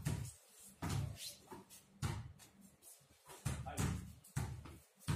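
Basketballs bouncing on paved ground: a string of irregular thuds about every half second from more than one ball being dribbled.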